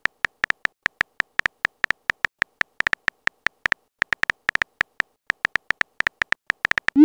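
Phone keyboard typing sound effect: a fast, uneven run of short identical clicks, one per letter as a text message is typed. Right at the end, a rising swoosh of the message being sent begins.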